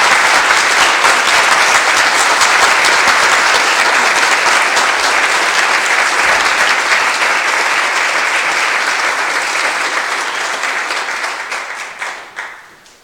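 Applause: many hands clapping in a dense, steady wash that fades out near the end.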